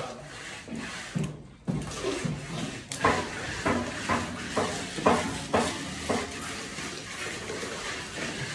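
Wet cement render being splashed from a cup onto a concrete wall and worked with a hand trowel: watery slapping, then from about three seconds in a run of short scrapes, roughly two a second.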